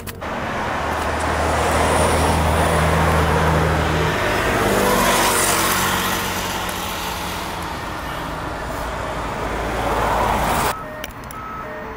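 Road traffic passing close by: a steady rush of engine and tyre noise with a low engine hum during the first few seconds. It cuts off suddenly near the end.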